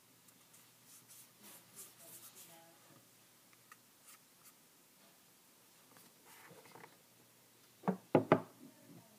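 Faint handling rustles, then about eight seconds in three sharp knocks in quick succession as the iPod and its packaging are handled on the table.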